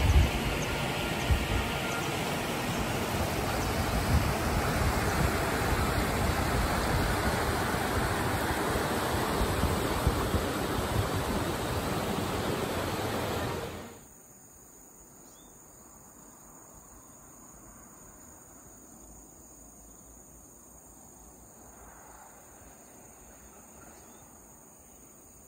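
Steady rush of a river flowing over rocks, which cuts off suddenly about halfway through, leaving only a faint background hush.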